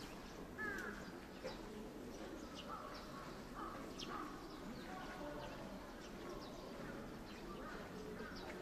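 Faint scattered chirps and short gliding calls, with light ticks over a low steady hum.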